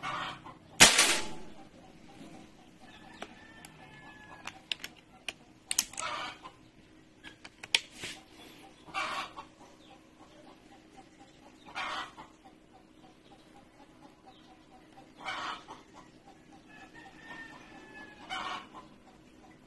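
A single sharp shot from a .22 calibre PCP air rifle about a second in, the loudest sound. Chickens cluck in short calls every few seconds.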